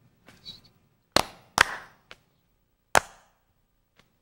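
Hand claps in a rest-clap-clap-rest-clap rhythm. There are two quick claps a little over a second in, a pause, then a single clap at about three seconds.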